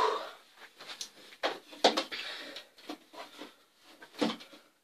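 A loud breath fades out at the very start, then scattered light knocks, clicks and rustling as objects are handled on a wooden shelf, the clearest knocks a little under two seconds in and again near the end.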